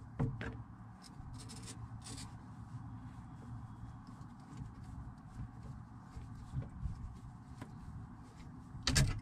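Small pipe cutter being turned round 8mm copper pipe to cut it: faint repeated clicks and scraping, with a louder click near the end.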